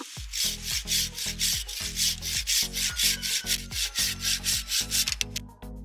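Curved pruning saw cutting through a fig tree branch in quick back-and-forth strokes, about four a second, stopping about five seconds in.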